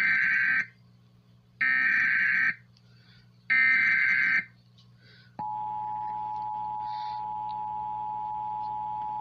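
Emergency Alert System SAME header: three short bursts of warbling digital data tones, about a second apart. About five seconds in, the steady two-tone EAS attention signal starts, announcing a National Weather Service severe thunderstorm warning.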